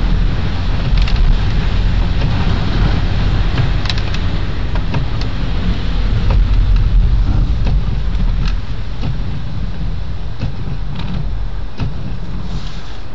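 Taxi driving along, heard from inside the cab: a steady low engine and road rumble with scattered faint clicks, easing off somewhat about two-thirds of the way in.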